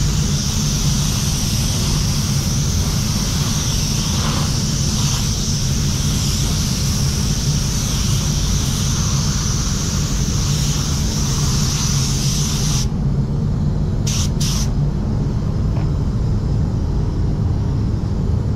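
Iwata W300 gravity-feed spot-repair spray gun hissing steadily at 2 bar as it lays down clear coat. The hiss stops abruptly about 13 seconds in, followed a second later by two brief bursts. The paint booth's fans run with a steady low hum underneath.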